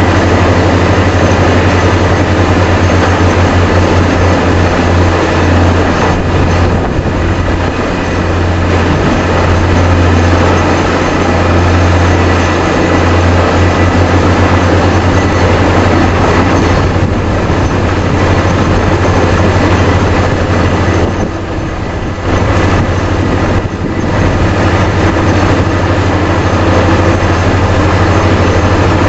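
Air drilling rig boring a well, powered by a Vesta VA650X2 diesel-driven portable screw compressor at 400 psig: a loud, steady mix of low diesel engine drone and drilling and air noise. It eases off briefly twice about two-thirds of the way through.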